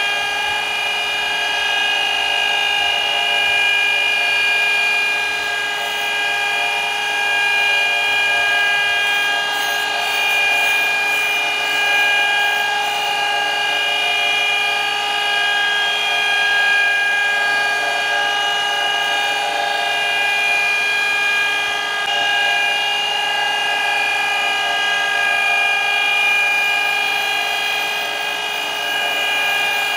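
Surface grinder running with a steady whine as its wheel grinds the point of a Royal three-bearing lathe live center back to 60 degrees, the center turned slowly by hand in a jig.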